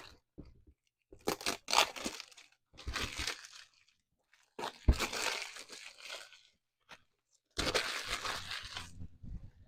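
A cardboard trading-card box being torn and pulled open by hand, in about five bursts of noise with short pauses between.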